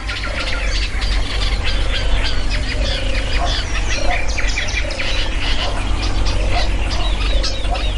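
A dense chorus of many birds calling at once: rapid, overlapping short high calls mixed with lower calls that repeat about every half second, over a steady low rumble.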